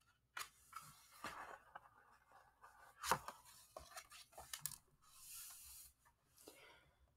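Paper pages of a picture book being turned and smoothed flat by hand: soft rustles and a few light taps, the loudest about three seconds in, then a brief soft brushing.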